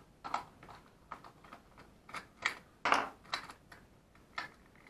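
A run of small, irregular clicks and taps: a small screwdriver turning 2 mm screws out of a hollow plastic toy part, and the plastic parts being handled. The loudest click comes about three seconds in.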